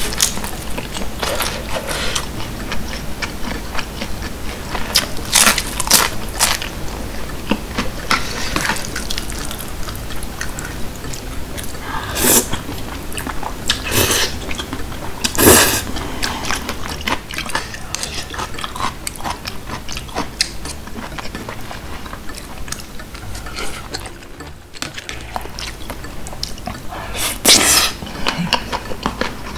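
Close-miked eating sounds: wet chewing of jjajangmyeon noodles in thick black bean sauce. Several sharp, loud slurps stand out: one a little before the middle, two close together just after, and one near the end.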